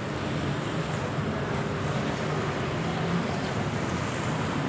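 Steady beachfront street ambience: passing road traffic with a low engine hum, over a soft wash of light surf.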